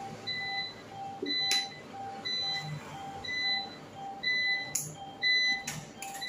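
ATM beeping over and over, short high beeps about once a second over a lower tone pulsing about twice a second, prompting the user to take the dispensed cash. A few sharp clicks are also heard.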